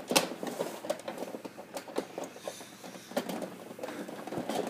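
Irregular clicks, knocks and light rattles of plastic printer parts being handled and pried apart, with a sharper click just after the start.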